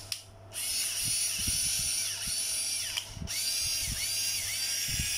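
Small 3.6 V cordless mini screwdriver, a slow-turning (about 200 rpm) electronics driver, running with a high motor-and-gear whine. It stops briefly twice, right at the start and about three seconds in, and starts again each time, with a few light clicks from handling.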